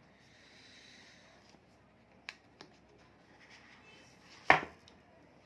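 Smartphone retail box and its packaging being opened and handled: a soft sliding rustle, a few light clicks, then one sharp snap about four and a half seconds in.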